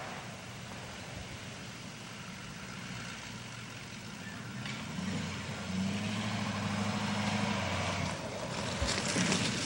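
Pickup truck driving on a dirt track, its engine running steadily and growing louder from about halfway through as it comes back toward the microphone, with rougher tyre noise near the end.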